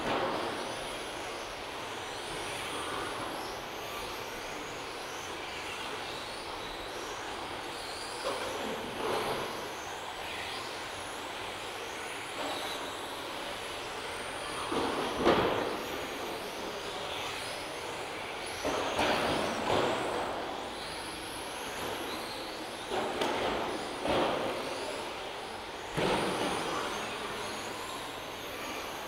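Electric 1:10 RC touring cars with 17.5-turn brushless motors racing: a high motor whine that rises and falls as the cars speed up and brake. Several times it swells as cars pass close, loudest about fifteen seconds in.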